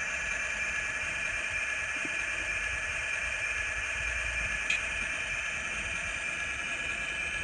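Sound decoder in an N scale BL2 diesel model playing an EMD 567 prime mover at idle through the locomotive's tiny speaker: a steady hissy idle with a thin ring of fixed tones.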